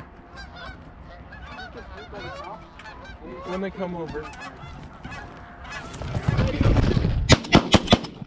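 Canada geese honking over and over as a flock comes in low, then a rush of noise about two thirds through. In the last second, shotguns fire about five shots in quick succession as the hunters shoot into the flock.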